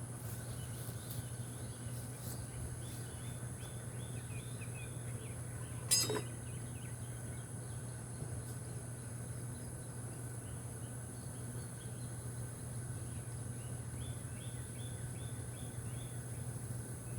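Honeybees humming steadily around an open hive while it is being worked, with birds chirping now and then and one sharp click about six seconds in.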